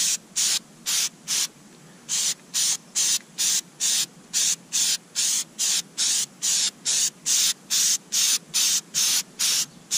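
Aerosol can of Flex Seal rubber coating sprayed in quick short hisses, about two or three a second, with a brief pause about a second and a half in.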